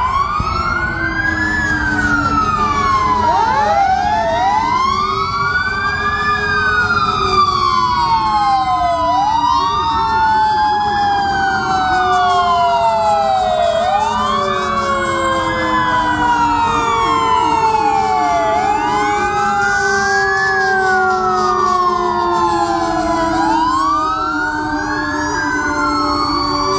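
Fire truck sirens wailing together, several at once overlapping. The loudest rises quickly and falls back slowly about every four and a half seconds, over a steady low hum.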